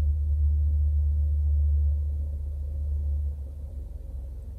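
A low, steady rumble, loudest for the first three seconds and then easing off.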